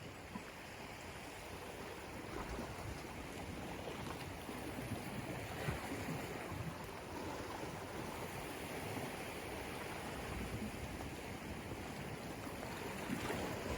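Steady wash of sea waves.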